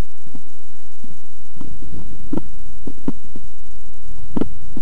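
Handling noise from a small handheld camera's microphone as it is turned and carried: a steady low rumble with four dull knocks, the loudest near the end.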